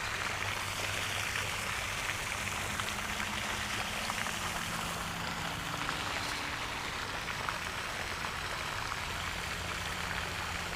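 Steady rushing, watery hiss with a faint low hum underneath.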